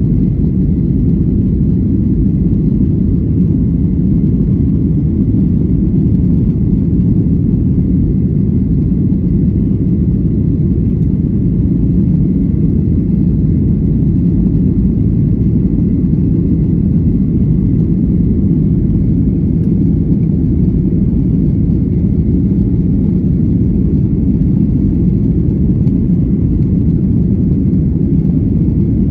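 Jet airliner cabin noise: a loud, steady low rumble of the engines and airflow, with a faint thin whine, unchanging throughout.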